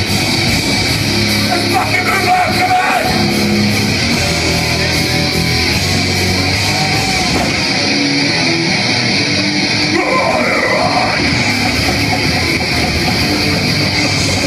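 Hardcore punk band playing live at full volume: heavily distorted electric guitars, bass and drums in a continuous wall of sound, with yelled vocals in places.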